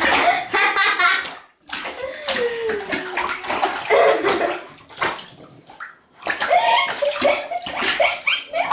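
Shallow bathwater splashing and sloshing in a whirlpool bathtub as a French bulldog puppy scrambles and hops about in it, in uneven spurts.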